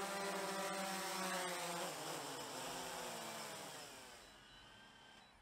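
DJI Phantom 3 Professional quadcopter's four propellers buzzing as it completes an automatic landing. After touchdown the motors spin down: from about two seconds in, the buzz falls in pitch and fades away.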